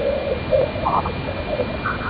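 Spacecraft plasma-wave recording of ion acoustic waves upstream of Jupiter's bow shock, played as sound. It is a hiss with a thin steady high tone through it and short, broken, warbling tones that come and go.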